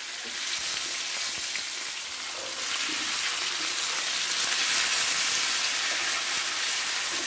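Oil sizzling steadily in a pan with onion, tomato and chilli tempering. A few seconds in, the sizzle grows louder as wet diced potatoes go into the hot oil, and a wooden spatula stirs them.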